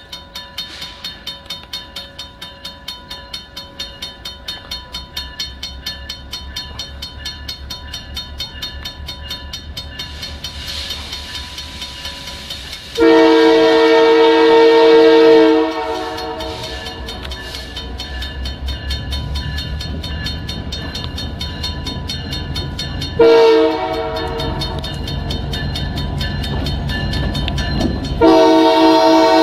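A diesel locomotive approaches a level crossing, its engine rumble growing, while the crossing bell rings with fast even strokes. The locomotive's air horn sounds a chord of several notes: a long blast about 13 seconds in, a short one about 23 seconds in, and another long blast starting near the end, part of the grade-crossing horn signal.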